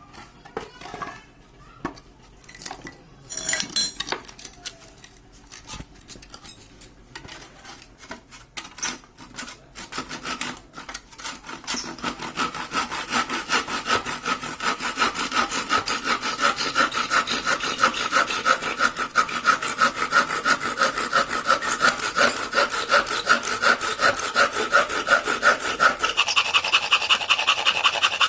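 Hand saw cutting through wood with quick, even back-and-forth strokes, after some scattered knocks of wood being handled; the stroke sound turns higher-pitched about two seconds before the end.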